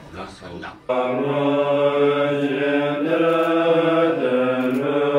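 A deep voice chanting slowly, coming in suddenly about a second in and holding one long sustained line that steps in pitch a few times.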